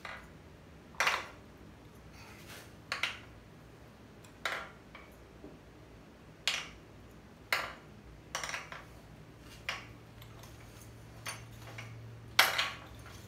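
Sharp metallic clinks and clanks, one every second or so, as the crankshaft of a VW 1600 air-cooled engine is turned by hand in the open case half, its timing gear driving the camshaft gear. The turning is a check that the cam gear does not crawl out of the case, which would point to misaligned gears.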